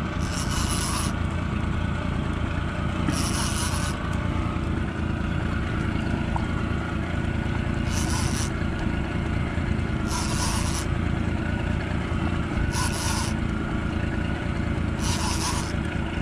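Fishing reel rasping in short bursts, about six times, every two to three seconds, as a fish pulls on the bent rod. A steady low rumble runs underneath.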